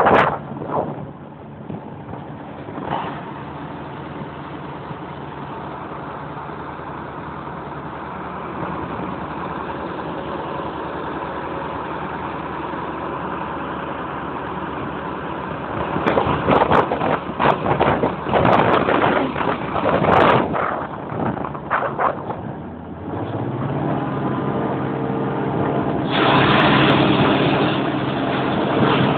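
Claas Jaguar 695 SL self-propelled forage harvester running, its engine a steady hum. A stretch of loud clatter and knocks comes midway. About three quarters through the engine note rises, and a loud even rushing noise sets in near the end.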